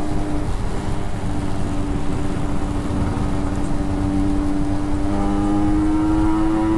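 Motorcycle engine running steadily while riding, its note climbing slowly and growing fuller over the last couple of seconds, over a low rumble.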